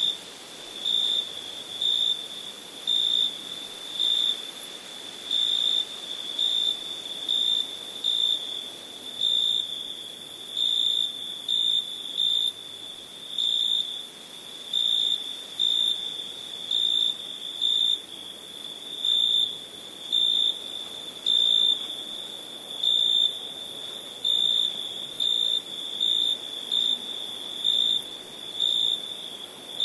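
Crickets singing: a continuous high trill with louder chirps about once a second, over a faint steady hiss.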